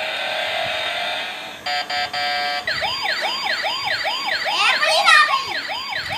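Battery-powered toy police car's electronic siren sound effect: a steady wail first, then a short broken beeping, then a fast repeating up-and-down yelp at about two and a half cycles a second.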